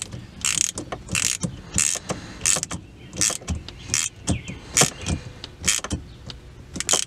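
Hand ratchet clicking in repeated short strokes, about ten of them, as it turns the shifter mounting plate's clamp bolt.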